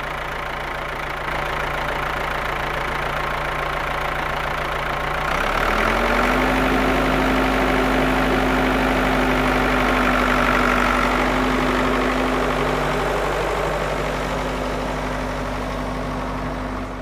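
Toy farm tractor running with a steady engine-like drone; its pitch steps up about five and a half seconds in and holds, easing off a little in loudness near the end.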